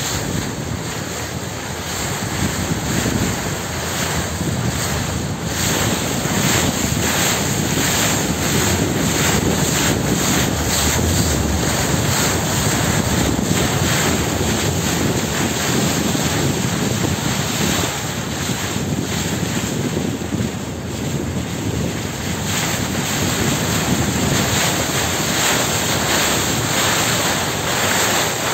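Wind rushing over the microphone on the deck of a moving river tram, over the steady rumble of the boat and the water along its hull.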